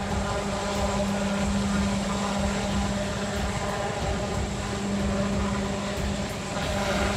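Sikorsky-Boeing SB>1 Defiant compound helicopter in flight, its coaxial rotors and tail pusher propeller making a steady drone with a strong low hum.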